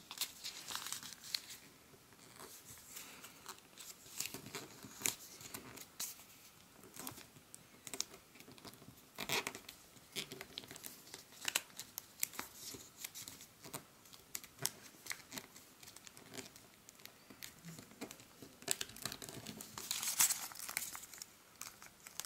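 Origami paper rustling and crinkling as it is folded and creased by hand: scattered faint crackles and scrapes, with a louder flurry of handling near the end.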